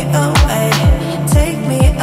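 Background music with a steady beat: deep bass drum hits that slide down in pitch, about two a second, under sustained chords.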